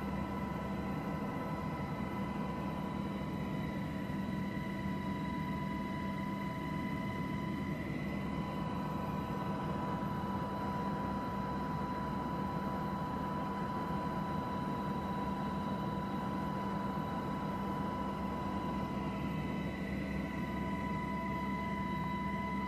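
Steady aircraft engine drone: a constant low hum with a high whine held at one unchanging pitch.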